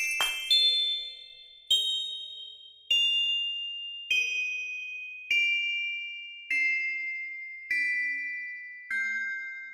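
Bell-like chime notes in the background music: eight single notes struck about once every second and a bit. Each note rings and fades before the next, and the line steps down in pitch note by note.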